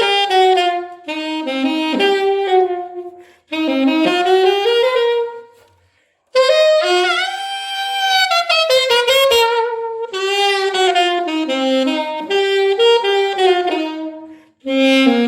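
Solo alto saxophone playing swinging blues phrases in the A minor blues scale, short runs of notes broken by brief pauses, with a long bent note in the middle of the passage.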